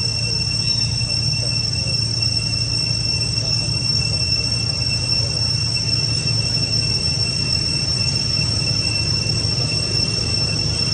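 Steady insect chorus with continuous high-pitched whining tones, over a steady low rumble.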